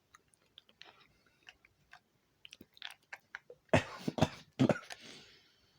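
Close-miked water sounds: faint scattered wet clicks, then about four seconds in three loud, sharp wet splashes close together, trailing off in a fading hiss.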